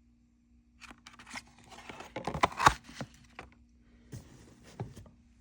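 Klein Tools Tradesman tool bag being handled: a run of rustling and scraping with a few sharp knocks, loudest about two and a half seconds in, then fainter rustling and a couple of clicks.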